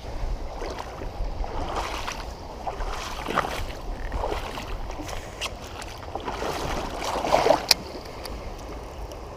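Water splashing and sloshing against a kayak, with scattered light knocks and clicks. The loudest stretch comes about seven seconds in and ends in a sharp click.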